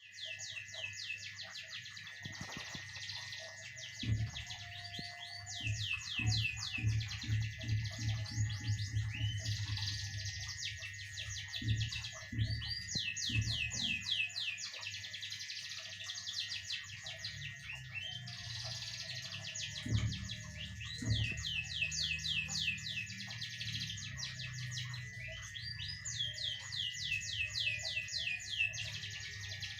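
Kept songbird singing, repeating runs of rapid down-slurred whistles every few seconds, over a steady high-pitched tone. Low thumps come in clusters in the first half and twice more about two-thirds of the way through.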